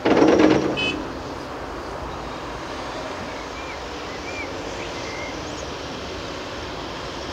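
A bucketload of earth from a Caterpillar 330F excavator crashes into a steel tipping trailer, loud for about a second. Then the steady running of the diesel engines of the excavator and the Fendt tractor as the loaded trailer moves off.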